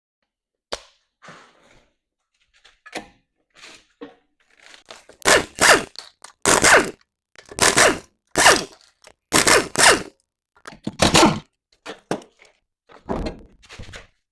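Tools knocking on a car wheel's bolts and hub while the wheel is taken off: a run of short, loud knocks, most of them in quick pairs, with fainter clicks and clatter before and after.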